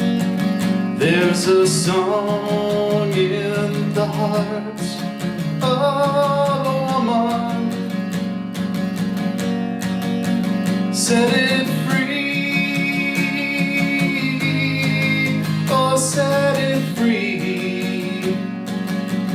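Acoustic guitar strummed in a steady rhythm, with a voice singing over it in several phrases.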